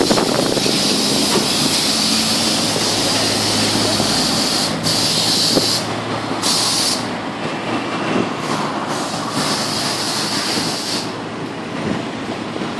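Loud hissing from repair-shop machinery that cuts in and out several times, over a steady mechanical din.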